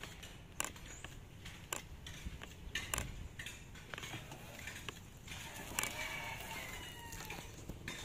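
A rooster crowing once, about six seconds in, over a few scattered sharp clicks.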